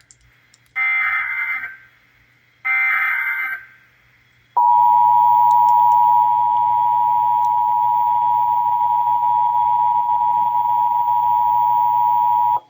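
Emergency Alert System SAME header data: two short bursts of rapid warbling data tones about a second apart. About a second later comes the EAS two-tone attention signal, a steady harsh dual tone held for about eight seconds and cut off sharply. The sequence opens a Required Monthly Test alert.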